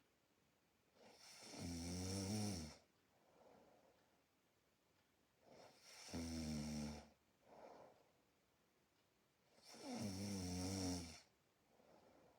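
A sleeping person snoring: three loud snores about four seconds apart, each lasting a second or more, with faint breathing between.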